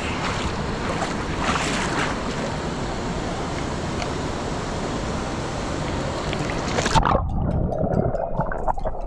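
Rushing mountain creek water, a steady full hiss. About seven seconds in, the high hiss cuts off suddenly, leaving a muffled low rumble and bubbling.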